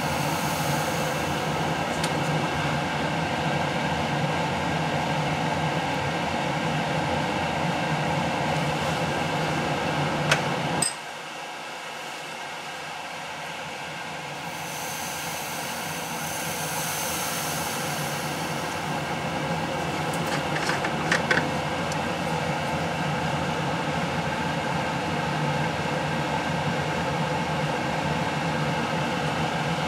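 Steady machine hum and hiss. It drops away suddenly about eleven seconds in and builds back up over the next several seconds. There are a couple of faint clicks.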